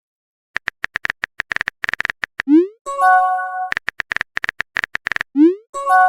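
Chat-app sound effects: quick irregular runs of keyboard typing clicks, each run followed by a short rising blip of a message being sent and a brief chime of several steady tones, a notification. This happens about two and a half seconds in and again near the end.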